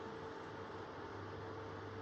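Electric fans running on medium speed with oscillation: a steady rush of air with a thin, steady motor hum.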